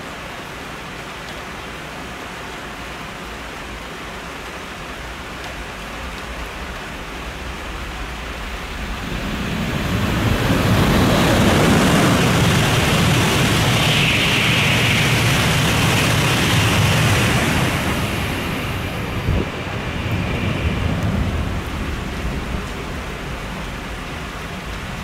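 Steady rain, then a Shinkansen bullet train passing through the station at speed. Its noise swells from about eight seconds in, stays loud for several seconds and fades away near the end, with the rain heard throughout.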